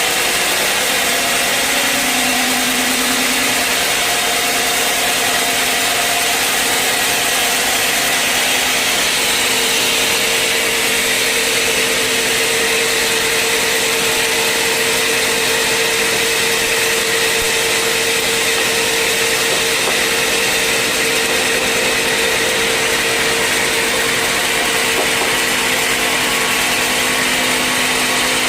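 Sawmill saw running steadily as it cuts through a log: an unbroken loud hiss with a steady low hum underneath.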